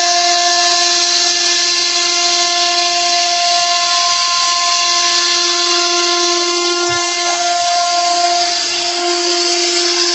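CNC router spindle running at speed, its router bit cutting grooves into a wooden door panel. It gives a loud, steady high whine over a hiss from the cutting.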